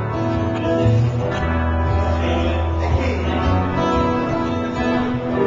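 A small band playing live: an acoustic guitar and an electric guitar, with a strong, steady bass underneath.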